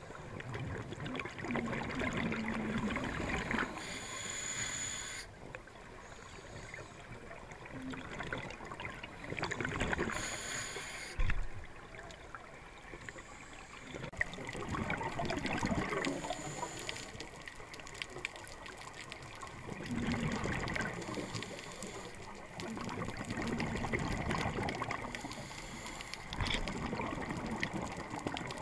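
Scuba diver breathing underwater through a regulator: bursts of exhaled bubbles rise in slow cycles every few seconds, with gurgling water between breaths.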